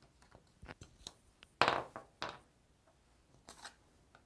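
Picture cards being lifted, slid and set down on cardboard game boards on a wooden tabletop: a few light taps, then a louder slide or slap about one and a half seconds in, followed by two smaller ones.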